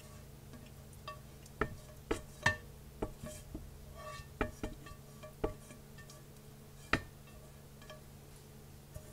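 A utensil knocking and clinking against a pan about eight times at uneven intervals, several knocks ringing briefly, over a low steady hum.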